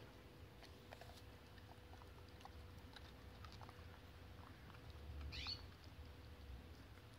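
Faint scattered clicks and crunches of a hound chewing a raw zucchini. A short high chirp rising in pitch comes about five seconds in.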